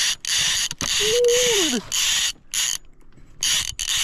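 Fly reel's click-and-pawl drag buzzing in uneven bursts, stopping and starting, as a large hooked trout pulls line off the spool.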